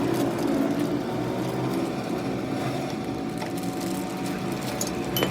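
Steady mechanical noise with a low, even hum and a few light clicks and knocks.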